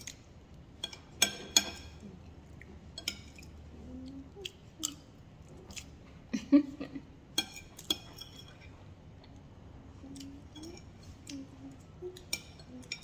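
Metal spoon and fork clinking and scraping against a plate in a string of sharp clinks, with chewing between them.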